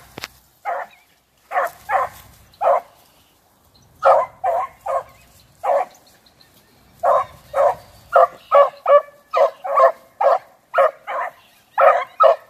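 Beagles barking in short, repeated barks as they work a rabbit's scent trail: a few barks at first, a pause, then a faster, steadier run of barking over the second half.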